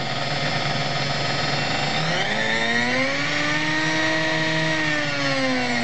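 Sunbeam Mixmaster hand mixer's electric motor running with a steady whine, its bearings freshly oiled. About two seconds in, a second, higher whine rises and then slowly sags in pitch.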